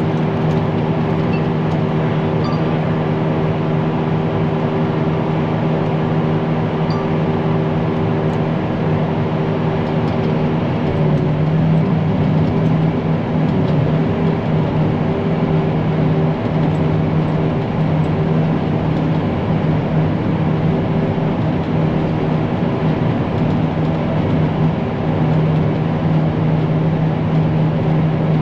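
Tractor engine running steadily under load, driving a forage chopper through a field of fourth-cut hay crop. About eleven seconds in the sound changes, its low drone growing a little louder and rougher.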